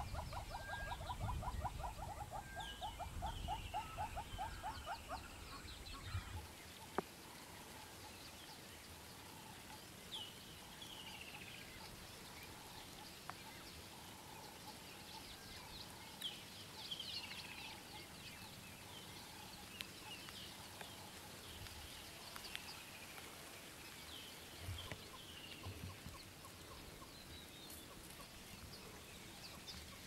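Southern yellow-billed hornbill giving a fast run of clucking notes, about ten a second, that stops about five seconds in. After that, short falling bird chirps repeat every few seconds, with a few soft clicks.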